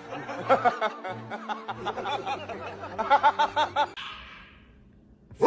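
A person laughing in quick repeated bursts for about four seconds, then dying away.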